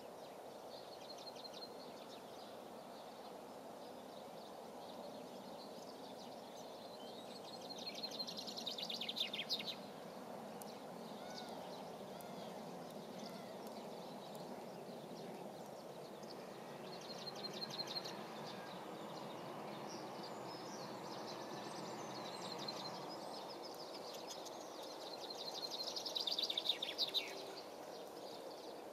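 A small songbird singing a short, rapid trilled phrase three times, about every nine seconds, over a steady low outdoor background noise.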